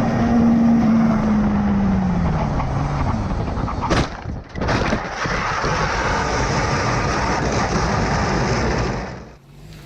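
Motorcycle engine note falling steadily in pitch as the bike slows, then a sharp crash about four seconds in, with a second knock just after. A steady rushing noise follows for several seconds and cuts off near the end.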